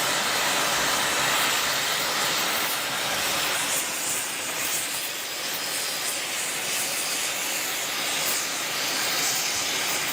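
A steady, even hiss with no clear pitch or rhythm, like spraying or escaping air or steam from a machine.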